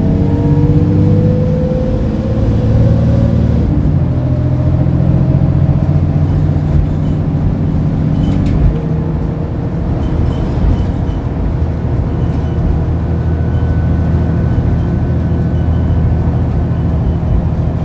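Mercedes-Benz Citaro O530G articulated bus's OM906hLA six-cylinder diesel pulling under full-throttle kickdown through its ZF six-speed automatic. The engine note climbs, drops at an upshift about four seconds in, climbs again and drops at a second upshift around nine seconds in, then runs on steadily.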